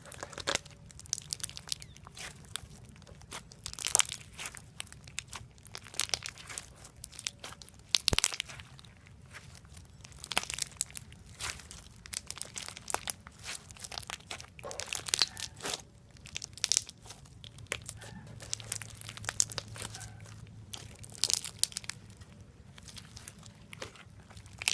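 Slime being squeezed and kneaded by hand, giving off irregular crackling and popping clicks as air pockets burst.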